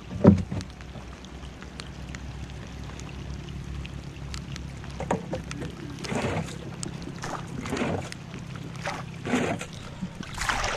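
Small boat engine idling steadily, with wet splashing and handling noises as a gill net is hauled in by hand and a fish is worked free and dropped back into the water. There is a sharp knock just after the start, and a run of short splashes and rustles in the second half.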